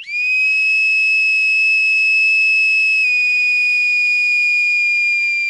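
A loud, steady high-pitched whistle-like tone with fainter overtones above it. It steps down slightly in pitch about three seconds in and sags a little further near the end.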